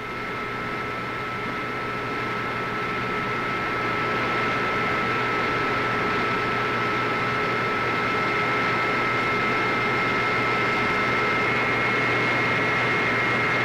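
Power-station electrical machinery giving a steady high whine over a hiss. It swells over the first few seconds, then holds level.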